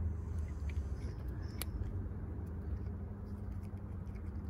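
A steady low rumble, with a few faint crunching clicks from a cat chewing dry kibble.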